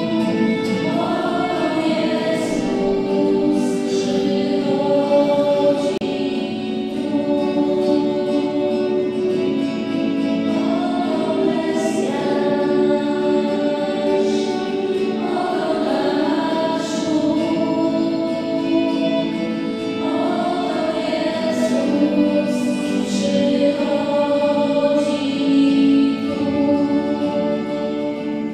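A choir singing slow sacred music in long, held chords, one phrase after another.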